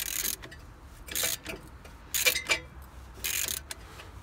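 Ratchet wrench turning the screw of a brake caliper piston compressor, pushing the caliper piston back into its bore: four short bursts of rapid pawl clicking, about one a second, one per swing of the handle.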